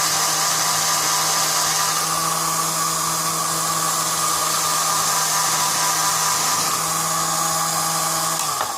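Cordless-drill motor and gearbox, rigged as a mini lathe, running at a steady speed with a constant whine and hiss. It is switched off near the end, its pitch falling briefly as it spins down.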